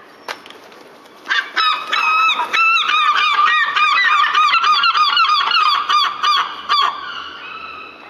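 Herring gull giving its long call: a few drawn-out notes and then a loud, rapid run of repeated yelping calls, about four a second, that breaks off near seven seconds in and trails into a few softer calls.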